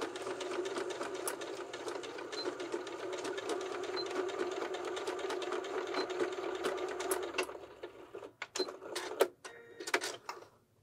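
Electric domestic sewing machine running at a steady speed, a fast even stream of needle strokes, stitching back and forth beside a zipper coil to lock a zipper stop. It stops about seven and a half seconds in, and a few sharp clicks follow.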